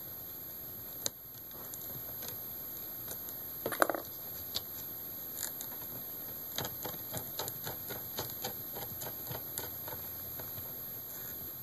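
Small clicks and taps from handling the parts of a laptop's screen assembly: a single click, a louder brief clatter near four seconds, then a run of light clicks, about three a second.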